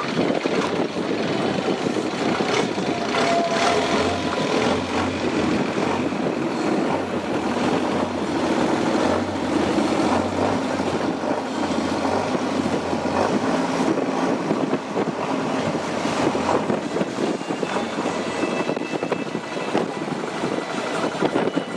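A boat's engine running steadily under way.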